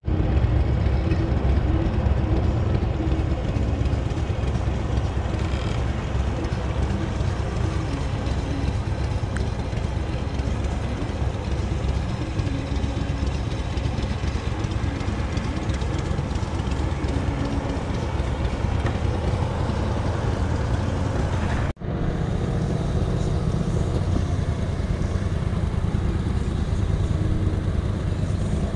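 Surface-drive mud boat motor running steadily under way on the creek. The sound breaks off for an instant about 22 seconds in, then carries on.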